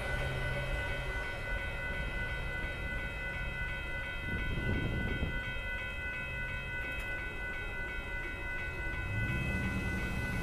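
Railroad grade-crossing warning bell ringing in a steady, rapid pulse while the gates are down, over the low sound of rail traffic. A short noisy swell comes about halfway through, and a low rumble grows louder near the end as the gates start to rise.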